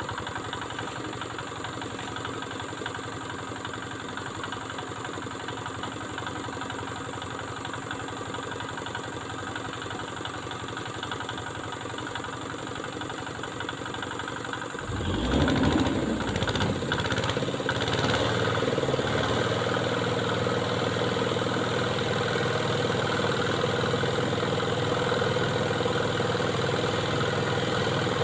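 Truck engine idling steadily; about halfway through it is suddenly revved up and then runs louder and steady, pulling under load.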